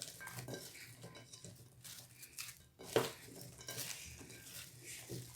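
Cut potatoes and vegetables being stirred and tossed in a bowl, a utensil scraping and clinking against the bowl, with one sharper knock about three seconds in.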